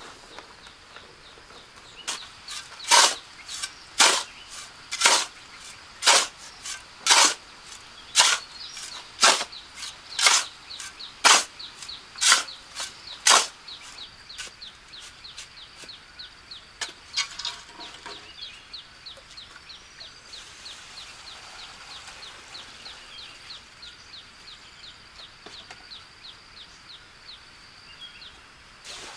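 A dozen sharp strikes at an even pace of about one a second, stopping a little before halfway through. A fast, steady, high-pitched ticking runs underneath the whole time.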